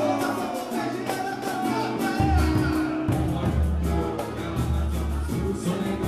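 Live band playing with a singer, steady percussion under the melody; a deep bass line comes in about two seconds in.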